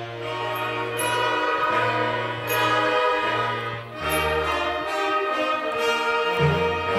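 Student concert wind band of woodwinds, saxophones and brass playing a slow, sustained passage: held chords over bass notes that change about once a second, with a brief dip in loudness just before the middle as a new phrase begins.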